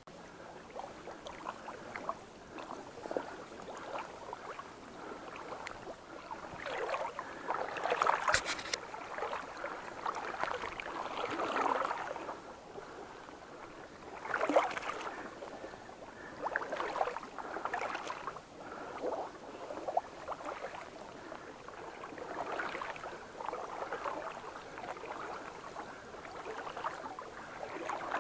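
Water splashing and sloshing in uneven surges that swell and fade, with no steady rhythm.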